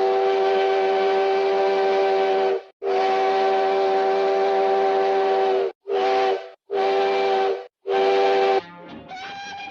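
Multi-chime train whistle sounding a chord over a hiss, in five blasts: two long ones, then three shorter ones. Quieter music comes in near the end.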